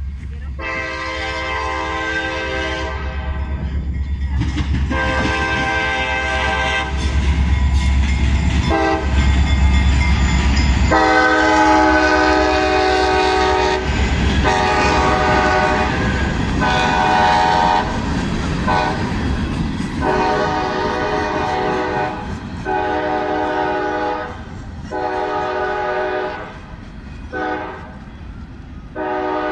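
Freight train passing with its locomotive horn sounding about a dozen long and short blasts, the grade-crossing warning pattern. A deep rumble fills roughly the first ten seconds, then the covered hopper cars roll past.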